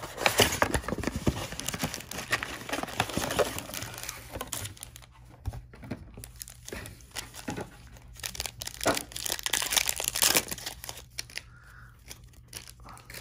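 Plastic wrapping of a trading card box and its card packs being torn open and crinkled by hand, in two busy spells with a lull between, then quieter handling near the end.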